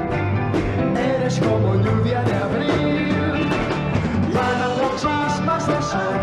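1960s Spanish beat-group pop song played live: a band with steady drum beats behind a male lead singer singing into a hand-held microphone.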